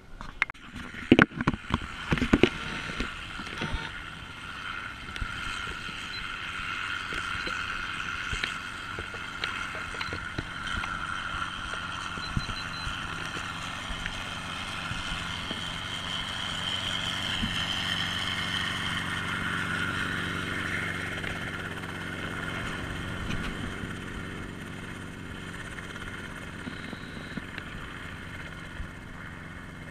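Bell 47 helicopter in flight: a steady piston-engine drone that swells in the middle and eases off near the end. A few sharp knocks come in the first couple of seconds.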